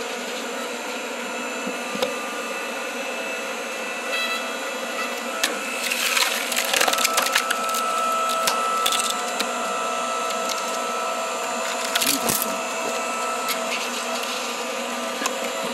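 Hydraulic log splitter running with a steady hum while its wedge forces into a pine log, the wood cracking and splintering in sharp bursts about six seconds in and again near the twelve-second mark.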